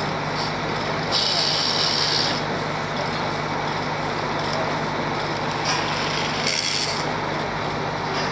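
Mobile crane's diesel engine running steadily with a low hum, broken twice by a short burst of hiss, once about a second in and again near seven seconds.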